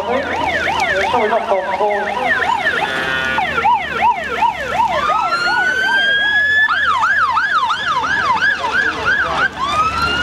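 Fire engine sirens sounding, more than one at once: mostly a fast yelp at about three to four sweeps a second, with a rapid warble about three seconds in and slow rising wails about five seconds in and again near the end.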